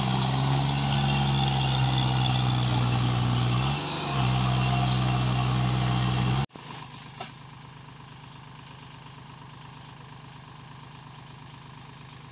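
Tractor engine running hard as the tractor spins its wheels in deep mud, with its note dipping briefly about four seconds in. It cuts off abruptly about six seconds in, and after that a quieter engine runs steadily.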